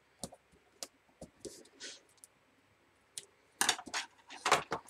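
Double-sided tape and a strip of patterned cardstock being handled and pressed down: scattered small clicks and short paper rustles, busiest in a cluster near the end.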